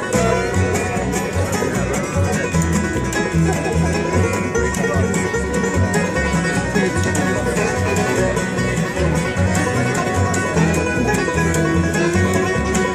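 Acoustic bluegrass band playing live: banjo, guitar, fiddle and dobro over an upright bass. The band comes in at full volume right at the start.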